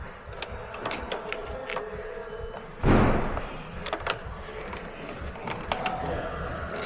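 Scattered clicks and knocks of hands working a car battery's terminal and cable connections, checking for a loose connection. One louder thud comes about three seconds in.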